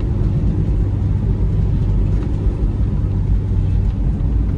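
Car driving on an asphalt road, heard from inside the cabin: steady low engine and tyre noise with no change in pace.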